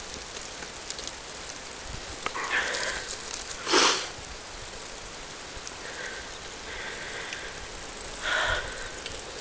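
Cyclist breathing hard while riding a rutted dirt track: three loud puffs of breath, the loudest about four seconds in, over the steady noise of the ride.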